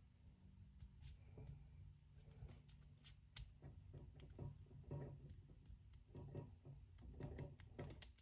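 Faint handling noise: scattered small clicks and rubbing as a watch band is worked into the slot of an Apple Watch SE case, and one side is not clicking in.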